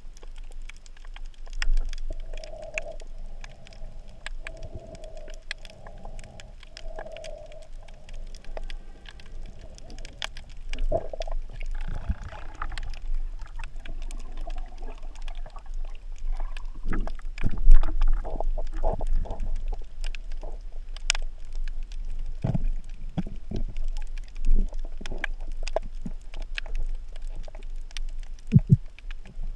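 Underwater ambience heard through the water: scattered clicks and crackles over a low rumble, with a faint wavering hum in the first several seconds and low thumps later on, several of them near the end.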